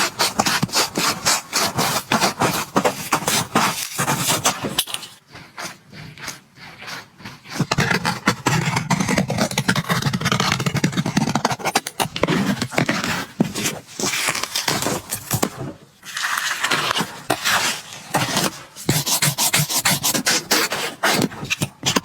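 A black Nike Dunk Low sneaker being taken apart: runs of quick rasping, scraping strokes on its leather and sole. About halfway through there is a smoother stretch of steady rubbing.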